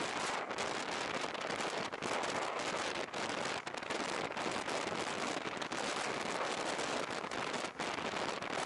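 Dense crackling hiss of wind and rain noise on a Sony FDR-X3000 action camera's microphone on a moving motorcycle, with no clear engine note. The harsh crackle is the tearing sound the uploader suspects comes from a microphone fault.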